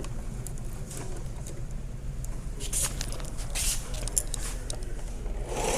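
Singer 4432 heavy-duty sewing machine being tried on its foot pedal: light handling clicks over a steady low hum, then near the end a louder, fast, even whirring of the machine's motor starts up. The machine is sold for parts or repair and does not work properly.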